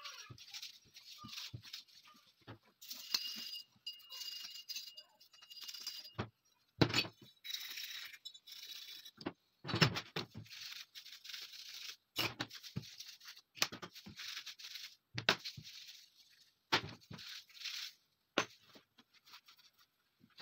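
Handling and scrubbing of a steel pistol frame and its small parts: bouts of rubbing and scraping noise with sharp metal knocks and clinks as pieces are set down on a wooden table, the loudest about a quarter and half of the way through.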